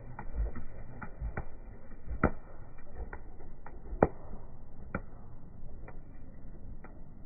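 Irregular sharp knocks and clicks, roughly one a second, the two loudest about two and four seconds in, over a low rumble.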